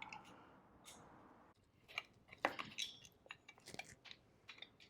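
Faint scattered clicks and scrapes of a 2.5 mm Allen key turning small screws out of a plastic side cover by an electric scooter's rear wheel, with a sharper click about two and a half seconds in.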